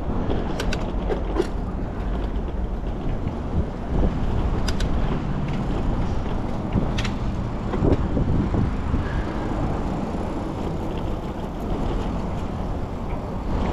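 Bicycle riding on a rough concrete bridge deck: steady wind rush on the microphone and tyre rumble, with a few sharp clicks and rattles from the bike.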